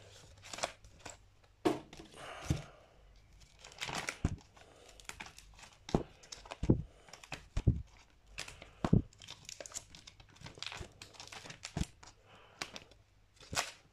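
Clear plastic outer sleeves on vinyl records crinkling and rustling as a stack of records is flipped through by hand, with irregular sharp taps as the sleeves knock together.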